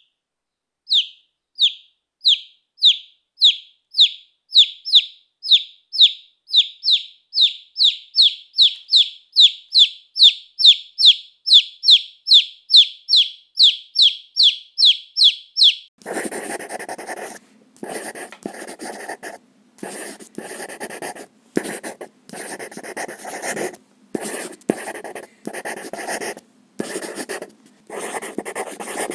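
Baby chicks peeping: a long run of short, high chirps, each falling in pitch, about two a second. About sixteen seconds in, this gives way to a pencil scribbling on paper, quick scratchy strokes in bursts with short pauses between.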